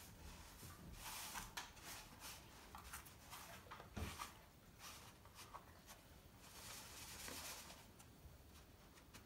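Faint gritty rustling and scraping of fingers spreading and smoothing a layer of salt in a plastic dish, in short uneven strokes, with a soft knock about four seconds in.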